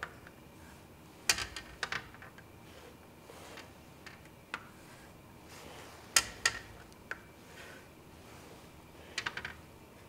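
A plastic set square and a marker tapping and clicking against a glass writing board while a shape is drawn. Scattered sharp knocks come a little over a second in and again about six seconds in, with a quick run of clicks near the end, over a quiet room background.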